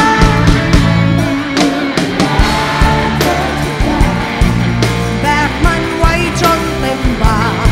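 A woman singing lead vocals in a Thai pop-rock song, played live by a full rock band with drums and bass.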